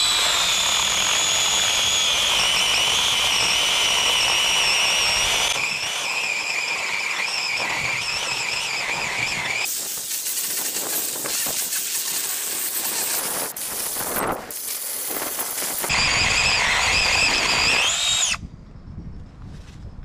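Cordless battery-powered mini chainsaw running with a high whine, its pitch sagging as the chain bites into a rotten log. About ten seconds in, the sound turns rough and noisy while the chain cuts and chips fly, then the saw whines free again briefly and stops near the end.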